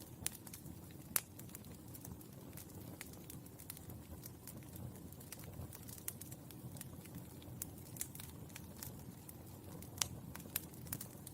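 Burning charcoal crackling: irregular sharp pops and ticks over a low, steady rumble, with the loudest pops about a second in and near the end.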